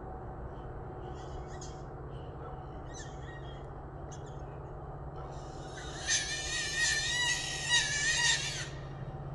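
An animal's high, wavering squeal, lasting about three seconds and starting about six seconds in, over a steady low hum and faint high chirps.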